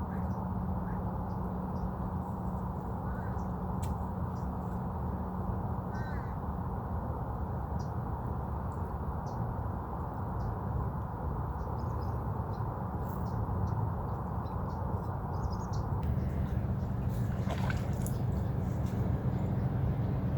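Outdoor ambience: a steady low background rumble with scattered short bird calls, which grow busier near the end.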